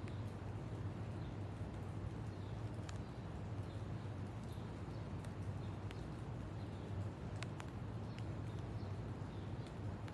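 Outdoor ambience: a steady low hum under a soft background hiss, with scattered faint ticks and faint high chirps now and then.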